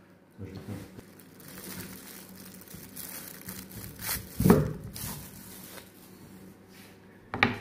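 Paper wrapping crinkling and rustling as a wedge of goat's-milk tomme is handled and cut with a knife, with a couple of louder rustles, about halfway through and near the end.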